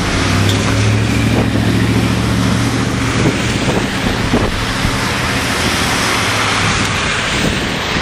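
Cars and SUVs driving slowly through deep floodwater, their tyres pushing and splashing water in a steady rush. A passing vehicle's engine hums steadily over it and fades about a second before the end.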